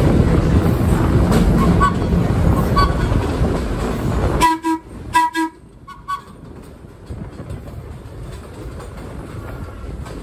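Subway train running on the track, a loud steady rumble that cuts off suddenly about four and a half seconds in. A few short horn toots follow over the next second and a half.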